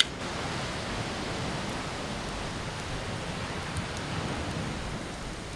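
Campfire of damp wood burning, a steady hiss of flames with a few faint pops. A single sharp click at the very start.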